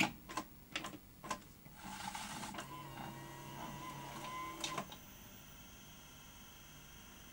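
Grundig 2x4 Super V2000 video recorder's tape mechanism under test: a few sharp mechanical clicks, then the motor-driven mechanism whirring for about three seconds and stopping with a click. The run is smooth and working okay after the drive belt work.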